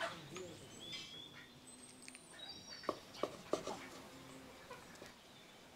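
Knife cutting raw chicken on a wooden cutting board, with a few sharp knocks of the blade on the board about three seconds in. Birds chirp in the background.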